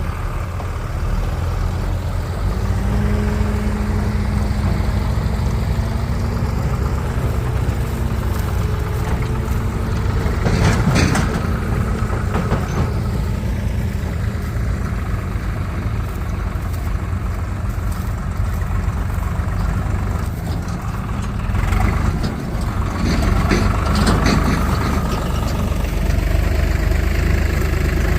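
Heavy diesel engine of a tractor or backhoe loader running steadily, with louder clattering bursts about eleven seconds in and again about two-thirds of the way through.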